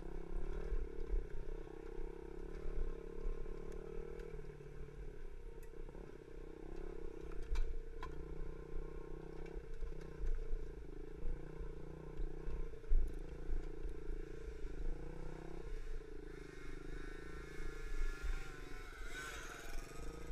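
Small 50cc four-stroke pee wee dirt bike engine running steadily under throttle close up, over a rough low rumble with a few sharp knocks as the bike rides the bumpy track. A higher-pitched sound joins in near the end.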